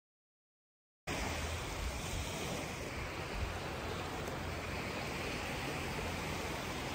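Steady wind blowing across the microphone, mixed with the wash of small surf on the beach. It cuts in abruptly about a second in, after dead silence.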